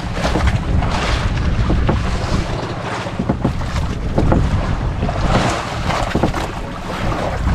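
Wind buffeting the microphone in a steady rumble, with sea water sloshing and lapping against a small boat.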